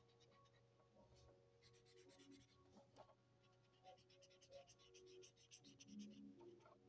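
Felt-tip marker scratching on notepad paper in quick coloring strokes, faint, in two spells of scribbling about two and four seconds in.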